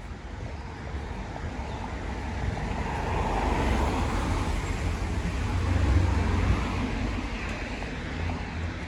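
A road vehicle passing on wet asphalt. The tyre hiss over a low engine rumble builds for several seconds, is loudest about six seconds in, then fades.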